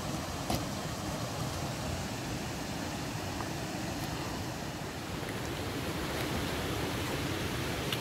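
Steady rush of a flowing river, open water running between snow and ice banks, with a light click about half a second in.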